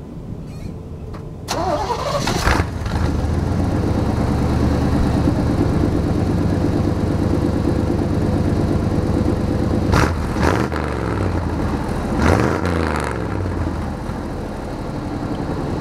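1993 Chevy Silverado's 5.7-litre V8 running, heard at the exhaust: it flares up sharply about a second and a half in, runs steady, is blipped twice near the end, then settles lower.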